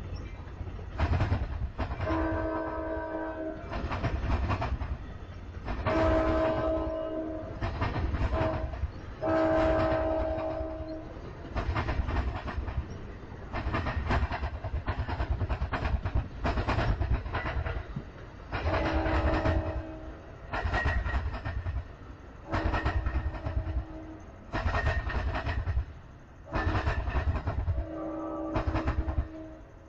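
Amtrak passenger train sounding its multi-chime air horn: a long, long, short, long sequence, then three more long blasts. Underneath runs the rumble and repeated clatter of its wheels on the track.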